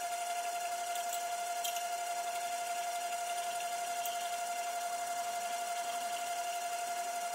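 DIY micro lathe made from a CNC rotational axis, running with a steady high whine while a 5 mm drill bores a through hole in an aluminium rod dry, without coolant. A few faint ticks come through.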